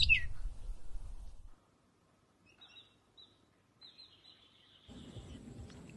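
Birds chirping outdoors: a couple of loud, quickly falling chirps over a low rumble right at the start, then a near-silent stretch with a few faint high chirps. About five seconds in, a steady low outdoor background noise cuts in.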